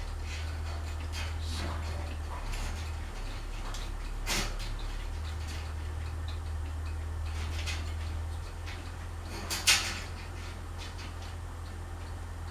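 Scattered light clicks and clatter from handling a ceiling fan's electrical wiring, with sharper clicks about four seconds and nearly ten seconds in, over a steady low hum.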